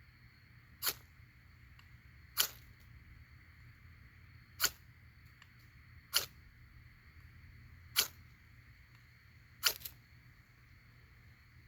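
Ferrocerium rod struck with a steel knife spine to throw sparks onto tinder: six short, sharp scrapes spaced about one and a half to two seconds apart.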